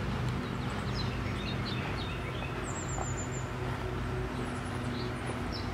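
Outdoor yard ambience: small birds chirping here and there, with a quick run of high chirps about three seconds in, over a steady low hum.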